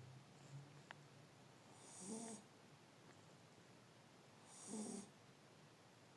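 A sleeping pet snoring faintly and regularly: two snores, about two and a half seconds apart, each a low pitched rasp with a hiss on top. A tiny tick sounds about a second in.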